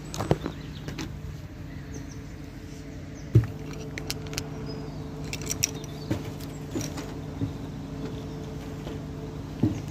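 Handling noise from the phone being moved and set down: scattered knocks, rubbing and clicks, the loudest a thump about three and a half seconds in, over a steady low hum.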